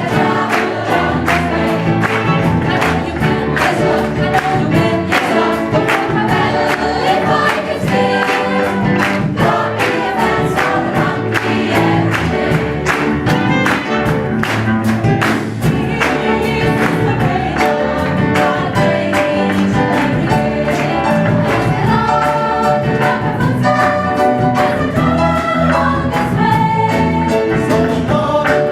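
Choir singing a gospel song with instrumental accompaniment and a steady beat.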